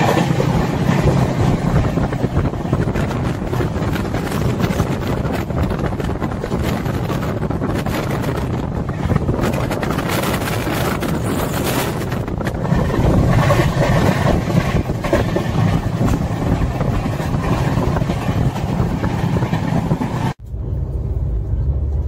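Konark Express passenger train running at speed, heard from an open side of the coach: a steady rumble and rattle of wheels on the track with rushing air. Near the end it cuts to a duller, lower rumble.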